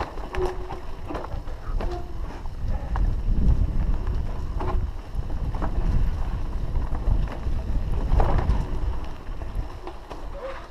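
Downhill mountain bike riding over a rough dirt trail: wind buffeting the camera microphone with a heavy low rumble, and the bike rattling and knocking over bumps and roots.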